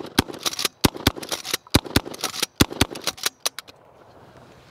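DP-12 double-barrel pump-action 12-gauge shotgun fired in a rapid string of sharp bangs, about a dozen over three and a half seconds, then stopping.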